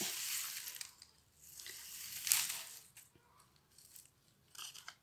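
Rustling and crackling of a bare-root terrestrial orchid clump's long leaves and roots as it is handled and turned over, with a louder rustle a little past two seconds.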